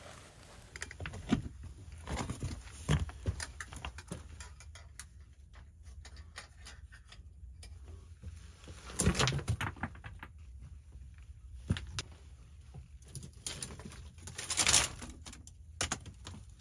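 Irregular clicks, knocks and rustles, with louder clusters of knocks about nine seconds in and again near the end.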